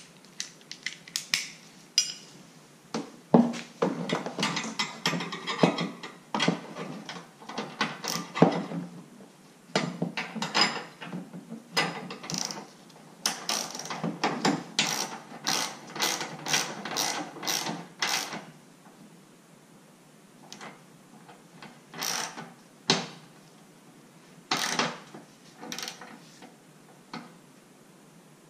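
Socket ratchet clicking in quick runs as the light bar's mounting bolts are turned, with short pauses between runs. After about 18 seconds the clicking thins out to a few short bursts.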